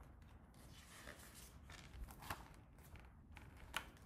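Faint paper rustling and soft taps as a hardcover picture book's page is turned by hand, with two slightly louder clicks, one past the middle and one near the end.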